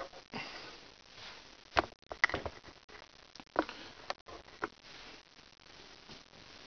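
Handling noise: a handful of sharp, irregular knocks and clicks with rustling in between, loudest around two and three and a half seconds in. No drill motor is running.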